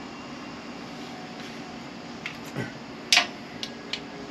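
A few short clicks and light taps as a bent sheet-metal piece and small magnets are handled against the steel frame, the loudest about three seconds in, over a steady background hum.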